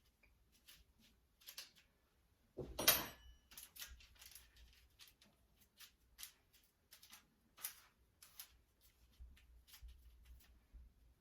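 Quiet kitchen handling sounds of pastry being worked by hand: scattered small taps and rustles, with one louder clatter with a brief metallic ring about three seconds in.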